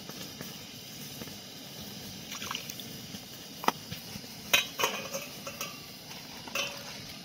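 A steel plate clinking and knocking against the rim of an aluminium pan as it is set on as a lid, several sharp clinks in the second half. Under it runs a steady low hiss.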